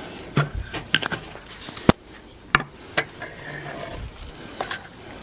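Scattered sharp clicks and knocks, about eight in five seconds and the loudest about two seconds in, from a spice shaker being handled and set down on a table and a fork being picked up.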